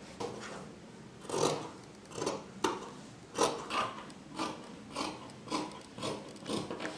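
Large fabric shears cutting through lightweight cloth: a steady run of about ten crisp snips, a little under two a second, starting about a second in.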